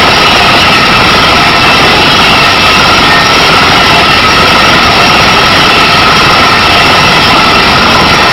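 Kaishan KW20 water-well drilling rig running, a loud, steady machine noise with no pauses or changes.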